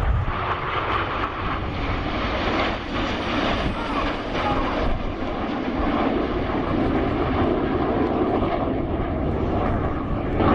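Display aircraft flying past at close range, a loud steady rush of engine noise that cuts off abruptly at the end.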